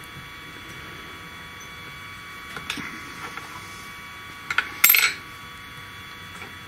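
Small steel open-end spanners clinking against metal: a few light clicks, then a louder cluster of ringing metal-on-metal clinks about five seconds in.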